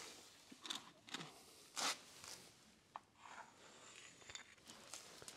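Quiet, irregular scrapes, rustles and a few sharp clicks of hard old rubber being handled and cut into a makeshift gasket, the loudest scrape about two seconds in.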